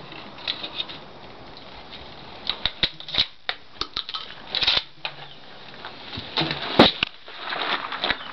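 A run of sharp clicks and clatters from a 1903A3 Springfield bolt-action rifle being handled after a shot, with one louder clack about seven seconds in.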